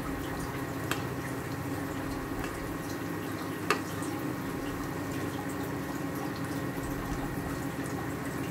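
Breaded chicken cutlets deep-frying in hot oil: a steady sizzle. A metal spatula turning them clinks against the pan, faintly about a second in and more sharply near four seconds.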